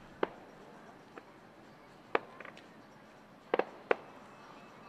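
Fireworks popping: sharp single bangs at uneven intervals, one just after the start, one about two seconds in, and a quick double bang followed by another a little before four seconds.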